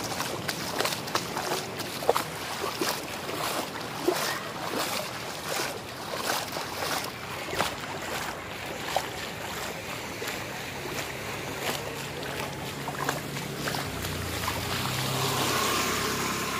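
Footsteps splashing through shallow floodwater on a paved road in open sandals, a sharp splash with each step. Near the end a motor scooter's engine comes up louder and passes close by.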